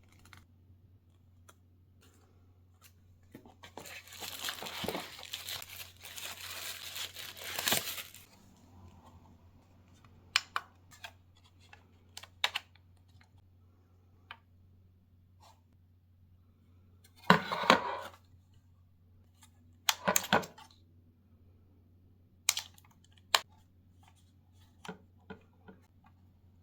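Packaging being torn and crinkled for about four seconds during an unboxing. Then come scattered sharp clicks and two short rustling bursts as the box and its contents are handled, over a faint steady low hum.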